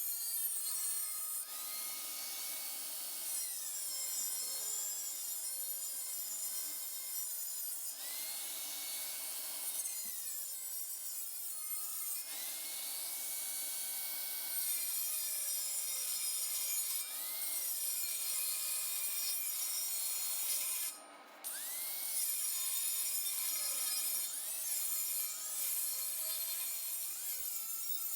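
Steel saw blade being cut to a rough knife shape: a steady hissing, rasping cut with a whine that rises, holds and falls again every few seconds, and one brief break about three-quarters of the way through.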